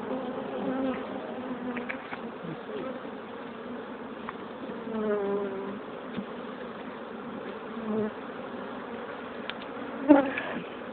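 Steady buzzing hum of a mass of honey bees swarming over the frames of an open hive box, the colony stirred up by the hive being opened and worked. The hum swells briefly about halfway through and again, loudest, just before the end.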